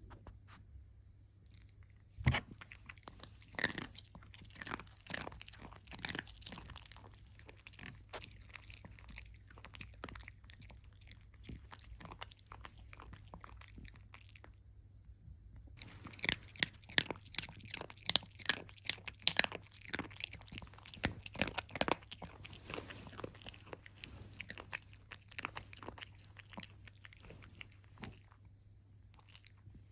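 A puppy crunching and chewing a dried sweet potato stick, in irregular bites. There is a short lull about halfway through, then a busier run of crunches.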